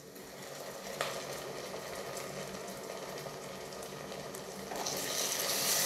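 Ginger-garlic paste and shallots frying in hot coconut oil in a pan, sizzling steadily as a wooden spatula stirs them, with one sharp knock about a second in. The sizzle grows louder and hissier near the end.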